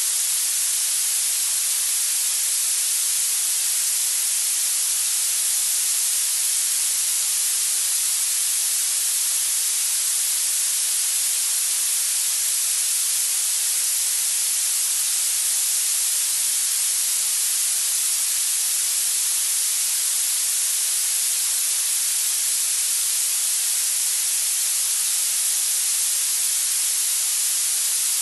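Steady synthetic hiss played as tinnitus masking and retraining noise, unchanging in level, with most of its strength high in the treble and little bass.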